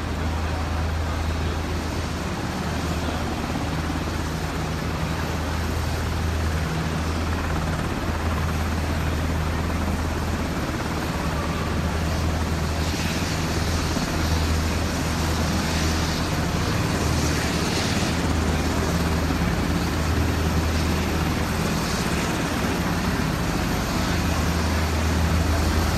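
Navy MH-60S Seahawk helicopters running on the flight line, their twin turboshaft engines and rotors making a steady low drone.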